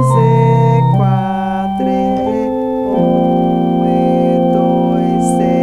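Electronic organ playing a slow piece in F major: sustained chords over held bass notes, the notes changing at about one and two seconds in, then one long chord held from about three seconds in.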